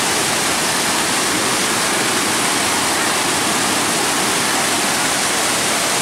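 Waterfall and cascades of water rushing over rocks into a pool: a loud, steady rush.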